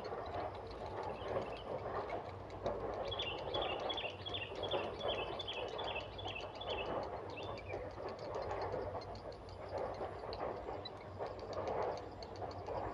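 Grey heron chicks' rhythmic, clattering begging calls at the nest. A small bird gives a run of about ten short high notes a few seconds in.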